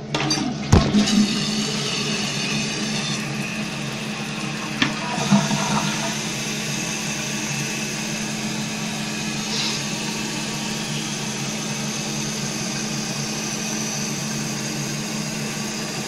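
Water hissing steadily from a Fluidmaster 400 fill valve as it refills a Mansfield Alto toilet tank, with a low hum under the hiss. There are a few light knocks in the first five seconds.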